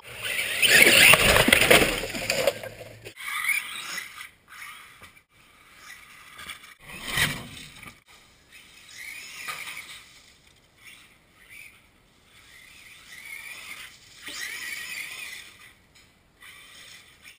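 Electric radio-controlled car driving on dirt, its motor giving short whines that rise and fall in pitch as it speeds up and slows several times. A loud rushing noise fills the first three seconds, and there is a single sharp knock about seven seconds in.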